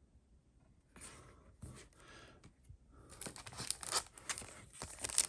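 Foil Pokémon booster pack wrapper being torn open and crinkled: scattered crackles starting about a second in, turning into dense, rapid crinkling over the last two seconds.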